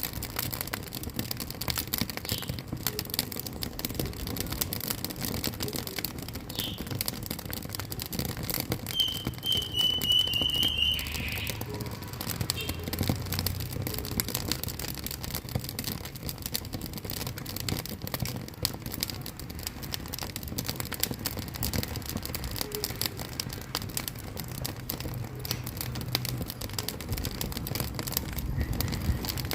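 Wood fire burning in a wood-fired cooking stove, crackling and popping steadily. A brief high, wavering whistle sounds for a couple of seconds about nine seconds in.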